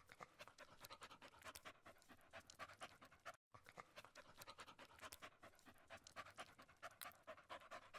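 Faint panting of a dog begging for food, mixed with many small irregular clicks and crackles. Everything drops out briefly about three and a half seconds in.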